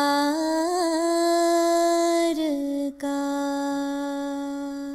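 A woman's voice holding long sung notes of a chanted Urdu nazm, with a brief wavering turn in pitch near the start. There is a short break about three seconds in, then one last held note that tapers off near the end.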